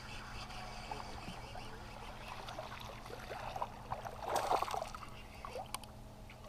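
Small splashes of a topwater frog lure being twitched across pond water, then a loud splash about four seconds in as a bass strikes the frog and churns at the surface.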